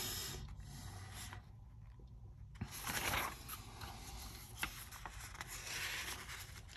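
Faint rustling and scraping of paper as a comic book is handled, with a couple of light ticks.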